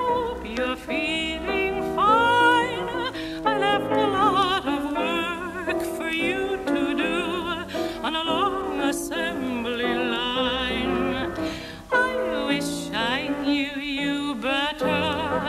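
Music: operatic singing with a wide vibrato over instrumental accompaniment.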